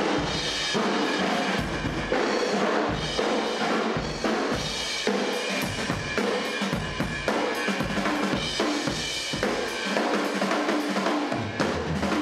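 Drum kit being played hard: a dense, continuous run of bass drum, snare and cymbal hits.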